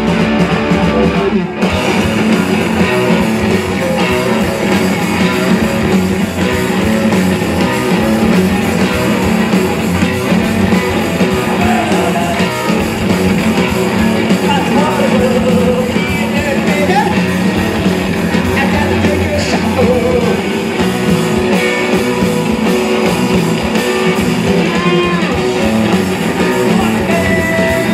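Live rock band playing loudly: electric guitars and drums with singing, the full band coming in abruptly about a second and a half in.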